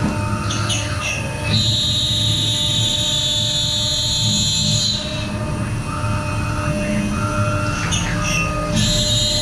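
1325 CNC router running, with a steady low rumble and a high whine that sweeps up, holds for a few seconds, drops away about halfway through and sweeps back in near the end.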